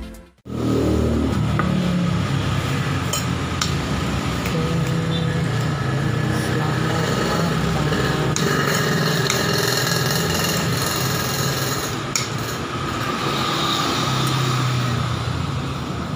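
Steady traffic noise from passing motorcycles and cars, with a few short clinks of a metal fork and spoon against a plate.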